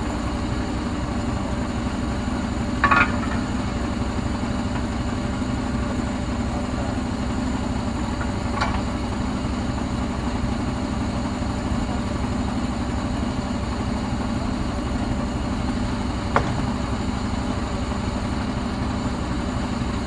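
Truck crane's engine running at a steady drone, with three short sharp knocks: about three seconds in, the loudest, then near nine and near sixteen seconds.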